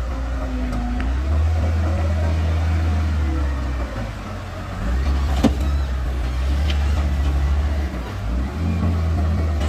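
Wheel loader's diesel engine running under load as it lifts a full bucket of soil and tips it into a dump truck, its note swelling and easing. A single sharp knock comes about five and a half seconds in.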